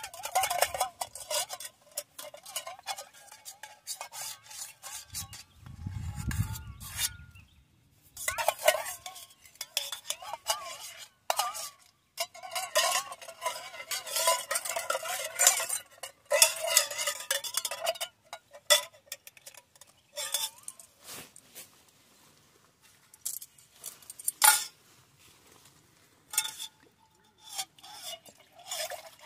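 Metal spoon scraping and clinking against a metal cooking pot, in quick irregular strokes with a few pauses. A short low rumble about six seconds in.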